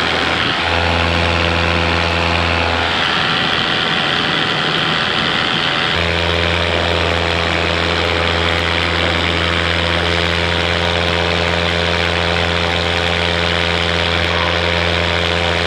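Paramotor engine and propeller running steadily in flight, a loud constant drone. Its deep hum drops back for a few seconds and returns strongly about six seconds in.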